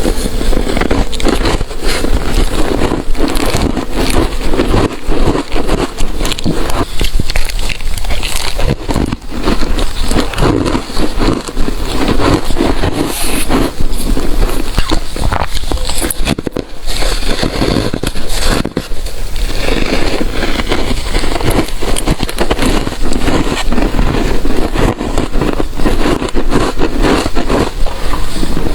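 Close-miked crunching and chewing of ice, a dense run of crackling bites with brief breaks about two-thirds of the way through.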